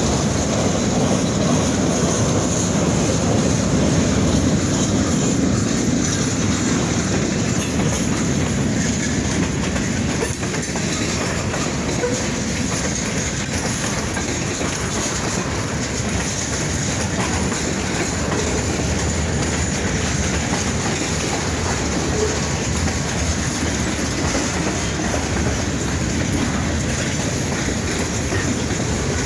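Freight train cars rolling past, a steady heavy rumble with wheels clacking over the rail joints. The rumble is loudest for the first ten seconds or so, then eases slightly.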